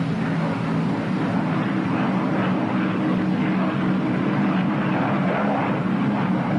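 Steady drone of a P-61 Black Widow's radial piston engine in flight, with one propeller feathered and the other engine running, heard through the hiss of an old film soundtrack.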